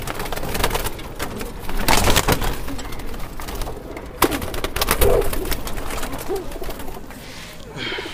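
Domestic pigeons cooing in a loft, with several short flurries of wing flapping and clatter as one pigeon is caught by hand from the cage.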